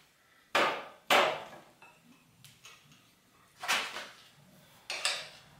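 Pedal wrench and BMX pedal knocking metal on metal as the drive-side pedal is worked loose from the crank arm: four sharp knocks spaced over a few seconds.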